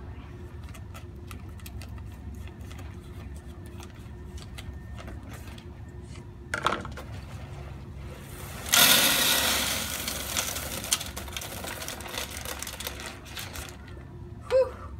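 Scissors snipping open a plastic bag of terrarium drainage substrate in a run of small clicks. About nine seconds in comes the loudest sound: the substrate is poured into the glass terrarium with a rushing rattle that fades over about four seconds.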